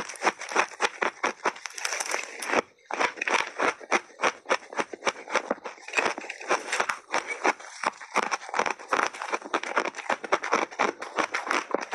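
Teeth biting and chewing a mouthful of frozen purple shaved ice: fast, crisp crunching, many crunches a second, with a short break about three seconds in.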